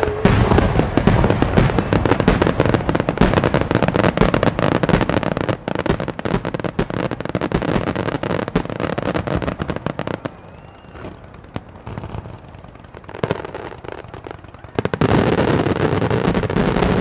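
Aerial firework shells of a finale barrage bursting in rapid succession, one bang running into the next almost without a break. About ten seconds in it thins to scattered, fainter pops for several seconds, then a dense, loud barrage starts again near the end.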